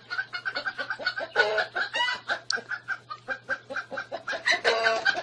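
A chicken clucking in a rapid, even run of short clucks, broken by two longer, louder squawks, one about a second and a half in and one near the end.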